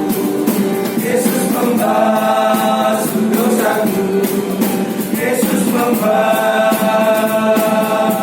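A choir singing a hymn in parts, holding long notes, with one long chord from about six seconds in.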